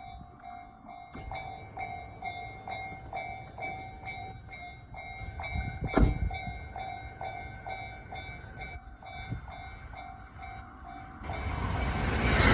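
Japanese railway level-crossing alarm ringing its electronic bell, a repeated clang at about two strikes a second, which stops about eleven seconds in. There is a sharp knock around the middle, and a louder rushing noise takes over near the end.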